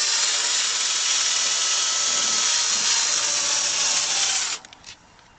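Electric drill spinning a polishing pad with buffing compound against a plastic headlight lens, running steadily with a faint whine, then stopping about four and a half seconds in.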